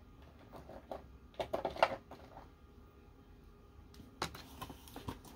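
A few light clicks and knocks of small jars and containers being handled and set down on a table, the loudest a little under two seconds in and again about four seconds in.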